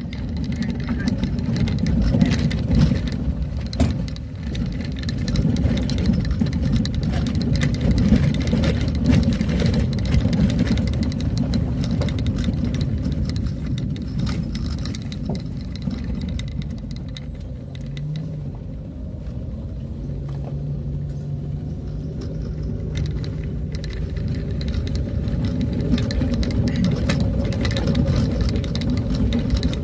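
Vehicle driving along a road: a steady low rumble of engine and road noise, with frequent small rattles and knocks.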